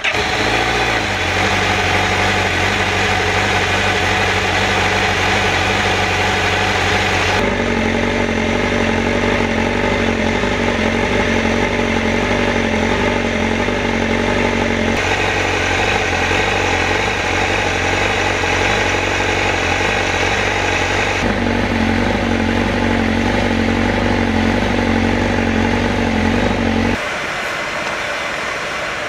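Honda CBR1000RR-R SP's inline-four engine idling steadily through an Akrapovic slip-on exhaust, at a constant pitch with no revs. The tone shifts abruptly every several seconds, and near the end it turns quieter with less low rumble.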